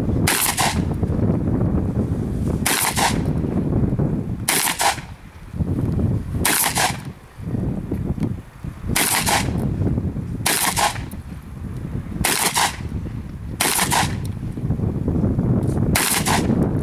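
Shotgun fired nine times at an even pace, a sharp shot every one and a half to two and a half seconds, over a steady low rumble.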